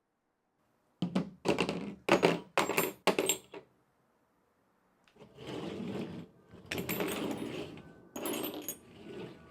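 Metal parts of an old bicycle pump being handled: about six sharp clanks in quick succession, then, after a short pause, a longer stretch of scraping and rubbing with a few clicks.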